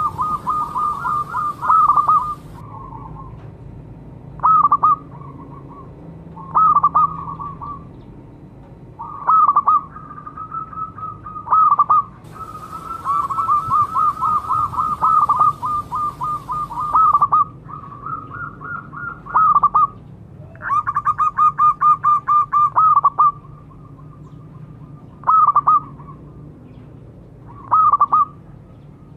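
Zebra dove (perkutut) calls: repeated phrases of rapid, staccato cooing notes, some short and some running several seconds, with pauses between them.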